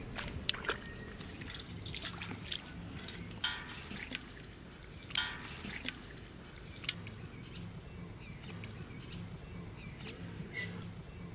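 Shallow floodwater splashing and sloshing as a person wades through it and scoops with a steel bowl and bare hands, a scatter of small sharp splashes. Two short animal calls stand out about three and a half and five seconds in.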